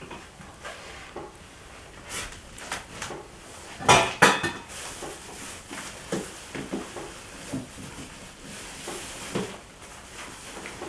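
Dishes and cutlery clinking and knocking on a table during a meal, with two louder knocks close together about four seconds in.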